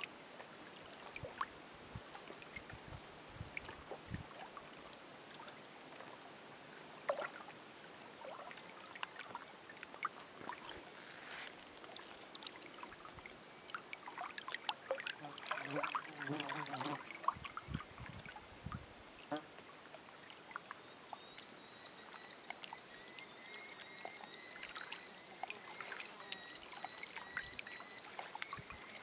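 Small waves lapping against granite shore rocks, with many little splashes, clicks and plops. About two-thirds of the way through, a thin steady high tone joins in.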